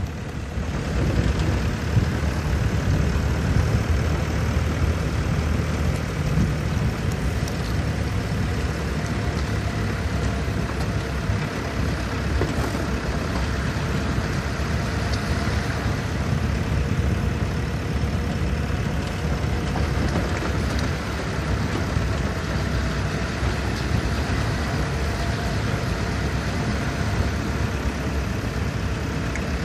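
Steady engine drone and road noise of a vehicle driving along a dirt road, even throughout with no distinct events.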